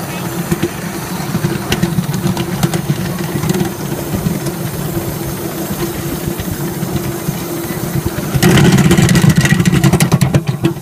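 Miniature 5-inch-gauge steam train rolling past close by: a steady low rumble with scattered sharp clicks from the wheels on the rails, much louder for the last two seconds or so.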